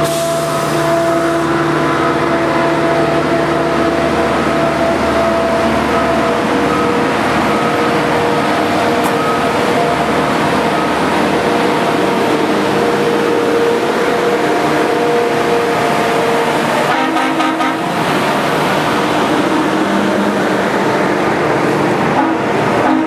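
A convoy of diesel maintenance-of-way track machines rolling past on the rails, their engines giving a steady drone with several held tones that shift in pitch. A quick run of clicks comes about seventeen seconds in.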